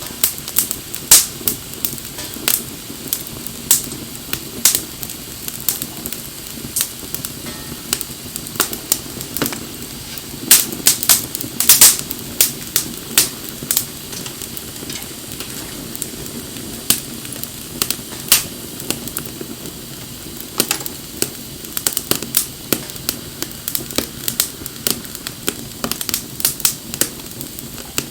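Wood bonfire crackling, with irregular sharp pops of burning wood over a steady low rush; a quick run of louder pops comes about eleven seconds in.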